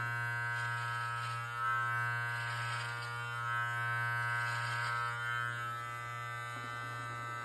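Live Bearded MT-1 beard trimmer running, a steady electric buzz as it is passed up the side of the beard, swelling slightly in loudness a few times as it moves through the hair.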